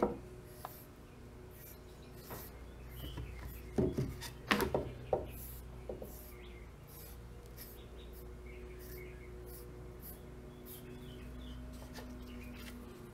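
Foam brush strokes spreading stain over a wooden 1903A3 rifle stock: soft, repeated rubbing and swishing. A few louder handling knocks come about four to five seconds in.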